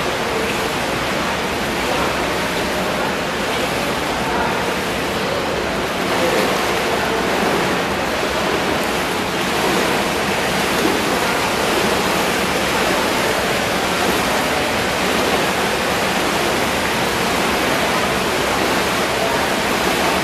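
Steady rush of churning water in an indoor dragon boat paddling tank as the crew paddles hard.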